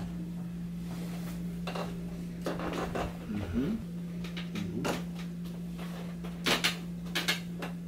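A few sharp clicks and knocks during a side-lying chiropractic hip adjustment, loudest as a close pair about six and a half seconds in, over a steady low hum.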